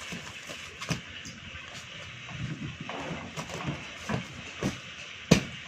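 Clear plastic bag around a stack of folded clothes crinkling and rustling as the bundle is pressed and turned, with a few soft thumps against the table and one sharp knock about five seconds in.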